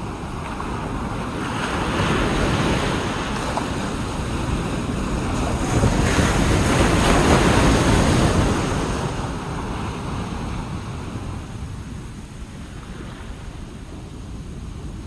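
Ocean waves breaking and washing up a beach, with wind buffeting the microphone. The surf swells twice, the bigger wave about six seconds in, then ebbs.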